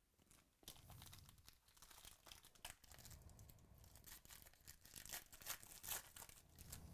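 A shiny foil trading-card pack wrapper being torn open and crinkled by hand, quiet crackling with sharp rips, starting about half a second in.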